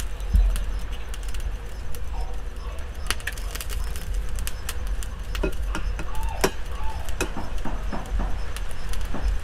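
Duck eggshells clicking and cracking as eggs are tapped and broken open by hand, with a few short bird chirps and a low rumble of wind on the microphone.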